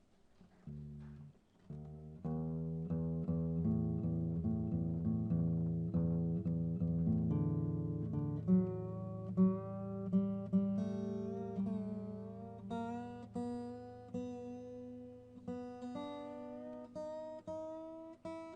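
Acoustic guitar played solo, picked notes and ringing chords with no singing: a few soft notes at first, then fuller playing from about two seconds in.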